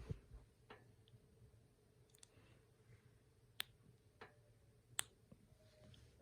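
Near silence with a few sharp, scattered clicks and taps of small plastic parts: a mains plug and its fuse being handled while the fuse is taken out.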